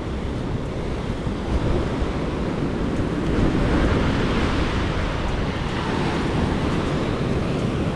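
Rough sea surf washing and breaking, with wind buffeting the microphone.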